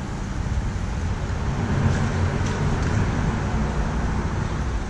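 Steady low rumble of road traffic, swelling in the middle, with a few faint clicks while a spinning reel brings in a hooked rock bass.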